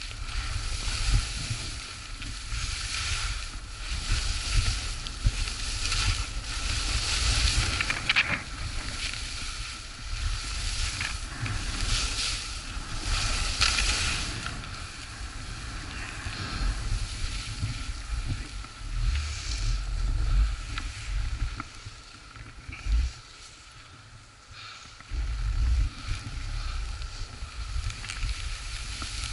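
Skis sliding and scraping over packed, chopped-up snow on a downhill run, the hiss of the edges swelling with each turn, over a steady rumble of wind on the microphone. The scraping drops away briefly a little over twenty seconds in, then picks up again.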